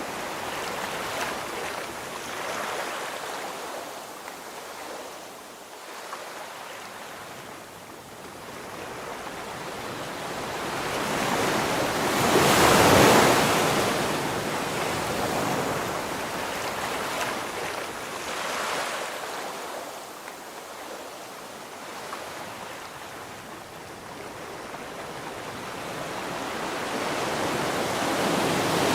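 Sea waves washing in: a steady rushing surf that swells and fades slowly, loudest about halfway through and building again near the end.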